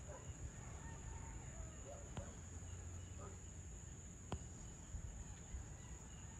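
Faint evening outdoor ambience: a steady, high-pitched insect chorus over a low background rumble, with two sharp clicks about two and four seconds in.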